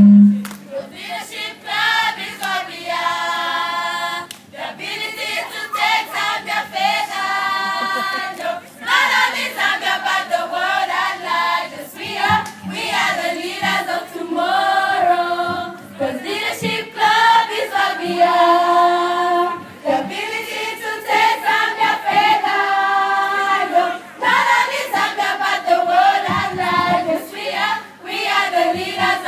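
A choir of schoolgirls singing together in phrases of held notes.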